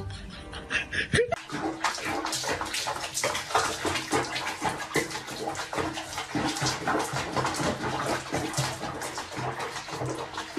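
About a second in, music gives way to water splashing and sloshing in a small tub of foamy bathwater with a cat in it: a dense, irregular run of quick splashes.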